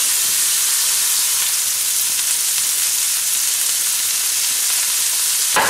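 Sliced okra sizzling steadily as it is dropped into hot oil in a stainless steel pan, with a short sharper sound near the end.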